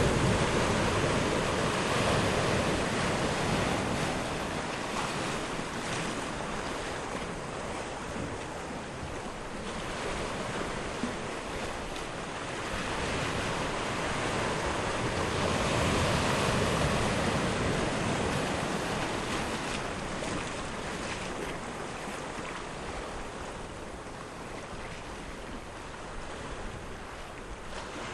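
Sea surf washing on a shore at low tide: a steady rush of water that swells and fades in slow surges, loudest near the start and again about halfway through.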